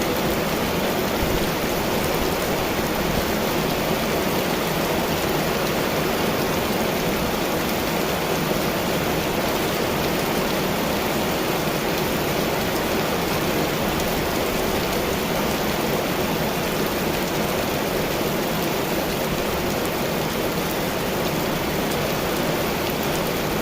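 Heavy storm rain falling in a steady, even downpour.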